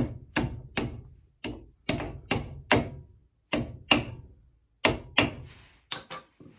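Claw hammer tapping the steel pad-retaining pins into a Brembo brake caliper: about a dozen sharp metallic taps in short runs of two to four, each with a brief ring.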